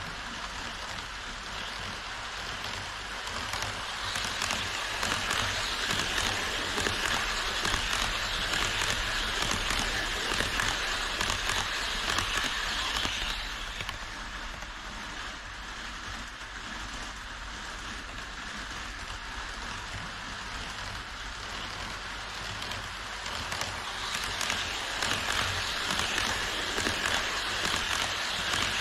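HO scale model trains rolling along a plastic track viaduct: a steady hissing rush of wheels on rails and running gear. It grows louder about four seconds in, eases off about thirteen seconds in, and builds again near the end as an E5 Shinkansen model approaches.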